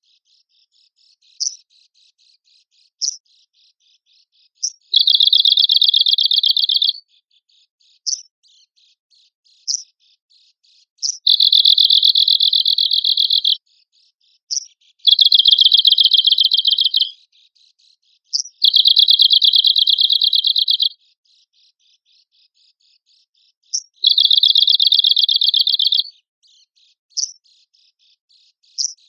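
Arctic warbler (cikrak kutub) singing: a series of rapid, dry buzzing trills of about two seconds each, five in all, separated by short sharp single call notes.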